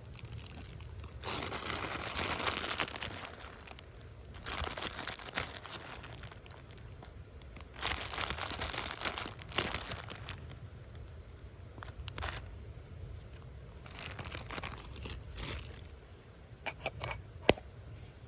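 Rustling and crinkling in irregular spells of a second or two, with a few sharp clicks near the end, over a steady low rumble.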